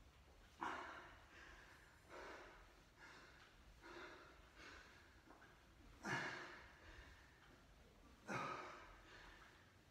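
A man breathing out hard in short, sharp breaths while doing crunches, roughly one breath a second at first, then further apart, with the loudest two past the middle.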